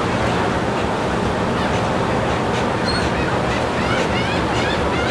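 Gulls calling, short repeated cries that come more often toward the end, over a steady rush of wind and surf.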